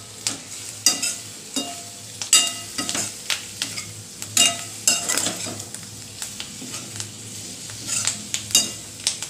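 A metal spatula scrapes and knocks against a steel kadai while tossing potato wedges in oil. Each stroke leaves the pan ringing briefly, at an uneven pace of about one to two strokes a second, with a short lull about two-thirds through. A light frying sizzle runs underneath.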